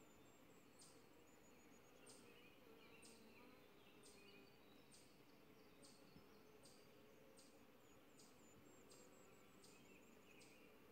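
Near silence outdoors: a faint low hum of honeybees around the open hive, with a short high chirp repeating about one and a half times a second.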